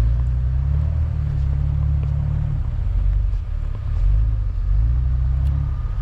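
Jeep engine running under load while driving through deep snow, a loud low rumble that swells twice, about a second in and again about four seconds in.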